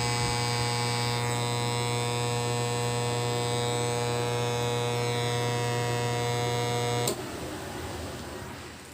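Kevler KR-310A powered speaker giving out a loud, steady electrical hum, the humming fault the speaker is being checked for. About seven seconds in the hum cuts off with a click, leaving a fainter hiss that dies away.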